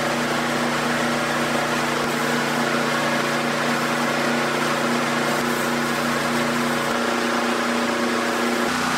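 Pressure washer running steadily with a hum, along with the hiss of a foam cannon spraying soap foam onto the tractor.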